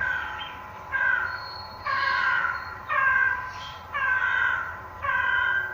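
Crow cawing repeatedly, about one harsh call a second.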